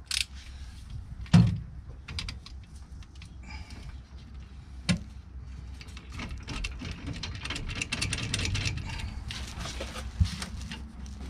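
Metal hand tools working on the rear brake caliper bolts of a van: one sharp metallic knock about a second and a half in, another click around five seconds, then fast light clicking and rattling for the last few seconds.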